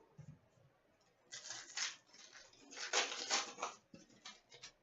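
A foil trading-card pack being torn open in two rustling pulls, then a few light ticks as the cards are handled.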